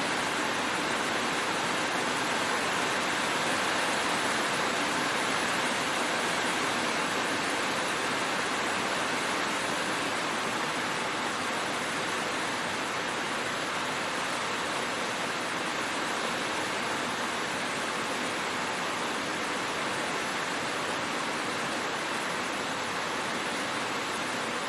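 Heavy rain falling on a road: a steady, even hiss with no thunder.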